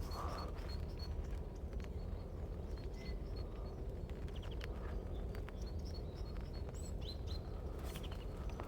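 Small songbirds calling: many short, high chirps and a few quick whistled glides, repeated throughout, over a steady low rumble.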